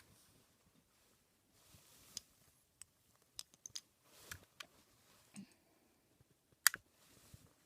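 Irregular sharp clicks and light handling of plastic Rubik's Cube pieces being fitted and turned, with one louder click near the end.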